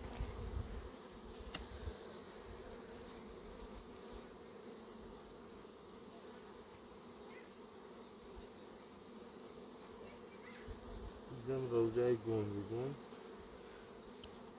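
Honeybees humming steadily from an open hive during an inspection. A voice speaks briefly near the end.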